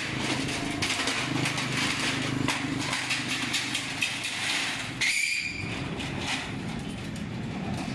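Corrugated steel roll-up shutter sheets clinking and rattling as they are worked and handled, with many short metallic clicks and knocks, over a steady engine hum. About five seconds in, a brief high metallic ring.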